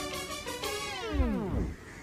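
Background music whose pitch and speed wind steeply down together, a tape-stop effect, cutting off abruptly about a second and a half in.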